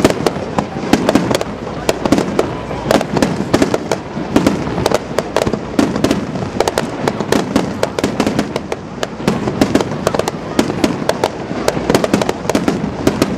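Aerial fireworks bursting in rapid succession: a dense, continuous run of sharp reports and crackles, several a second, echoing.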